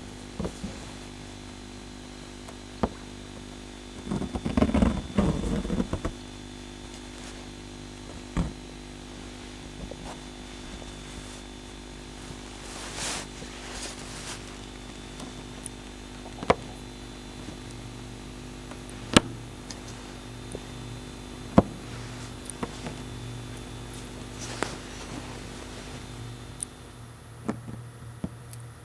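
Steady low hum made of several level tones, broken by a brief rough clatter about four seconds in and a few sharp isolated clicks.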